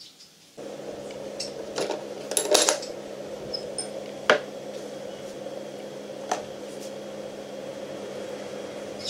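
Small hard objects clinking and knocking as reloading supplies are handled in a wooden box. There is a clatter about two seconds in, then single sharp clicks at about 4 and 6 seconds, over a steady low hum.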